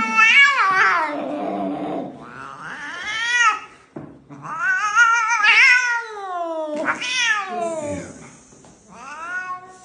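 Domestic cat yowling: five long, drawn-out meows, most falling in pitch, with a low growling grumble between the first two. The cat is being handled for a chiropractic adjustment.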